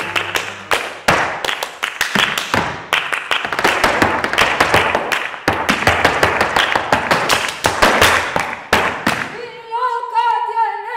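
Flamenco palmas, sharp rapid hand clapping, together with zapateado footwork stamping and tapping on the stage floor. Near the end the strikes stop and a woman's voice begins singing.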